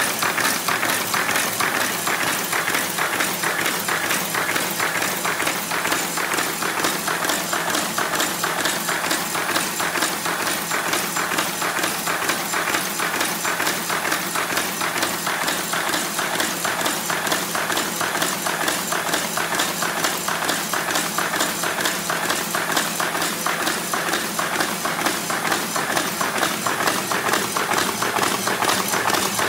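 Horizon AFC-544AKT paper folding machine running at speed: a fast, steady, even clatter as sheets are fed through and folded.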